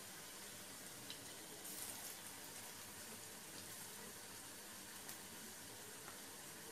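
Masoor dal pakoras frying in hot oil in a pan: a quiet, steady sizzle with a few small crackles and pops.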